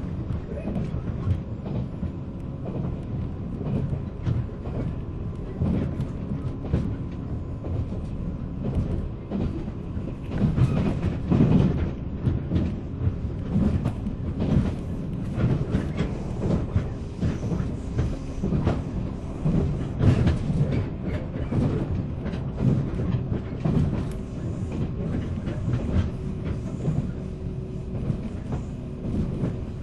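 Running noise inside a 485-series electric train's motor car: the wheels clatter over the rail joints with irregular knocks, under a steady rumble of the running gear. A faint steady hum comes in near the end.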